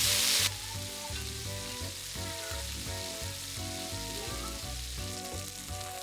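Chicken breasts searing in olive oil in a hot sauté pan, sizzling. The sizzle is loud at first and drops suddenly about half a second in to a quieter sizzle under soft background music.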